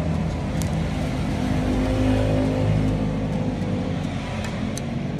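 A motor vehicle engine running, a steady low hum whose pitch rises a little around the middle. A few faint ticks come over it.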